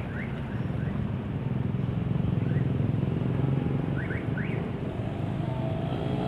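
Diesel locomotive engine rumbling steadily as it approaches over the station switches, getting louder in the middle, with a few short bird chirps above it.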